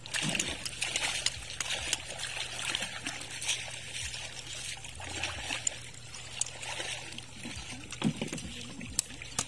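Shallow water trickling and splashing around hands working in it, with scattered sharp clicks of an oyster knife against shells.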